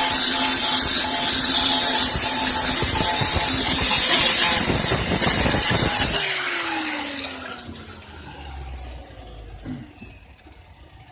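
Handheld power grinder cleaning sheet metal down to bare steel to prepare it for welding: it runs loud and steady, is switched off about six seconds in, and spins down with a falling whine.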